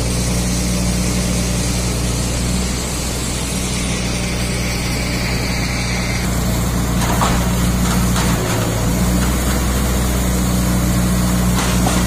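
Heavy engine of a truck-mounted loader crane running steadily with a low hum. A few faint knocks come through about seven seconds in and near the end.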